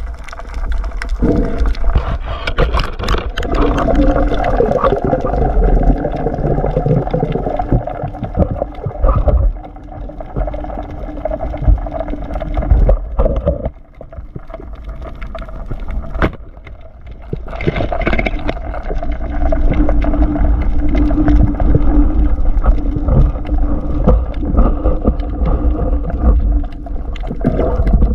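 Underwater sounds picked up by a diver's action camera: a steady low rumble of water moving against the camera, gurgling, and scattered knocks from handling the spear and catch, with a few short quieter gaps.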